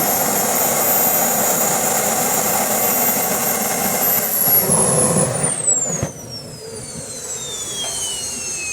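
Radio-controlled model airplane engine running loud and steady, then its high whine falls steadily in pitch from about five and a half seconds in, and the sound drops in loudness about a second later.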